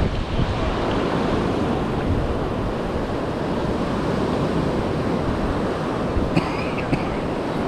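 Ocean surf washing in the shallows: a steady rush of small breaking waves and foam.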